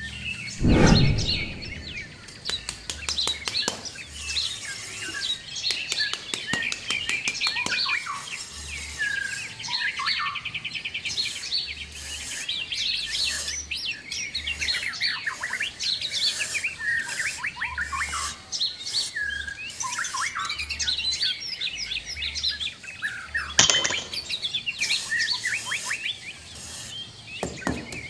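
Birds chirping and singing throughout, many short rising and falling calls, with scattered sharp clicks; a low thump about a second in.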